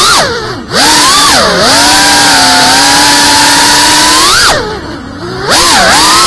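GEPRC FPV quadcopter's brushless motors and propellers whining, the pitch swooping up and down with the throttle. The throttle is cut twice, briefly near the start and for about a second near the end, so the whine drops away and then surges back as the motors spool up.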